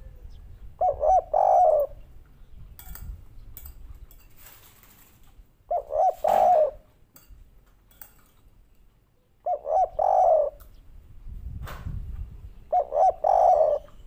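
Spotted dove cooing its three-part 'kuk 3' call four times, about every four seconds. Each call is two short notes followed by a longer one.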